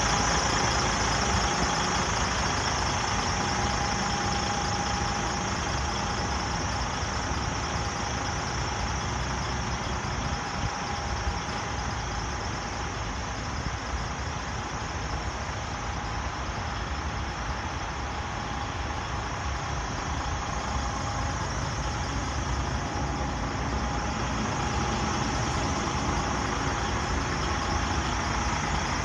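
DAF CF 85.360 truck's straight-six diesel engine idling steadily.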